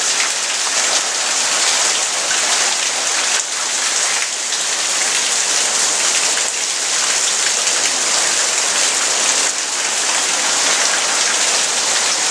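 Steady rain falling hard, a loud even hiss of drops.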